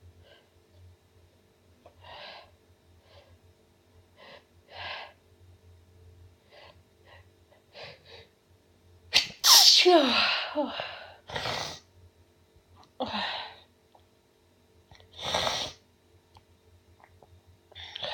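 A woman sneezing over and over. Short, faint breathy catches come first, then a run of loud sneezes from about nine seconds in. The first and loudest sneeze ends in a voiced cry that falls in pitch.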